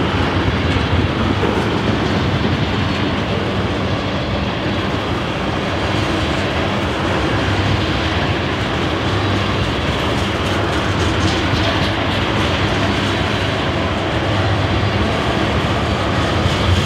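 Loaded ethanol tank cars rolling past: a steady, loud rumble of steel wheels on the rail.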